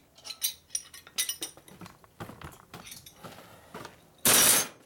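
Metal hand tools and engine parts clinking and tapping as they are handled, with a louder clatter lasting about half a second near the end.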